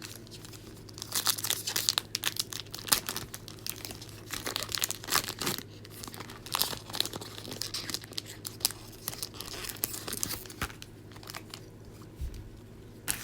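Plastic wrapping crinkling and tearing in irregular bursts as an NBA Hoops trading card pack is handled and opened.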